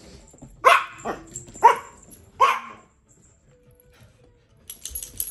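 Small dogs barking in play: four short, sharp barks in quick succession, then light clicking near the end.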